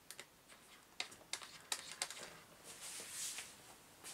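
A few sharp clicks and light knocks from an RC truck's wheel being handled and taken off, then a brief soft rustle near the end.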